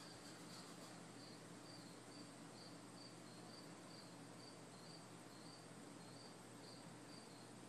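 A cricket chirping faintly and steadily in short, evenly spaced high chirps, about two a second, over a faint low hum.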